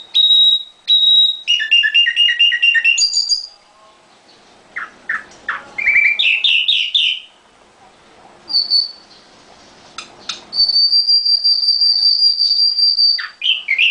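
Nightingale singing in a cage, in phrases with short pauses between them. It opens with a run of clear repeated whistles, then gives fast rapid trills and a few short notes, and near the end holds one long steady high whistle for over two seconds.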